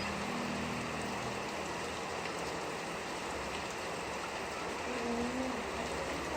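Steady rain falling and pattering on surfaces, an even hiss. A low hum fades away in the first couple of seconds.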